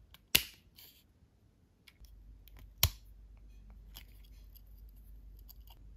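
Small plastic parts of a toy starfighter clicking and snapping as they are handled: two sharp clicks about two and a half seconds apart, with lighter clicks and rustling between.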